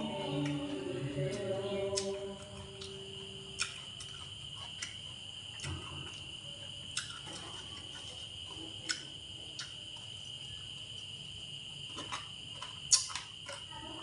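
A steady high cricket trill runs throughout. Over it come a series of sharp clinks of a metal spoon and chopsticks against ceramic bowls, the loudest near the end.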